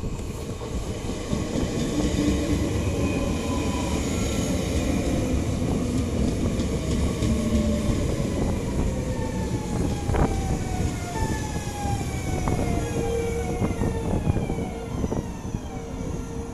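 NS VIRM double-deck electric train running past: a rumble of wheels on rail, with the electric drive's whine sliding steadily down in pitch and a few sharp clicks from the wheels and track. A steady whine holds near the end.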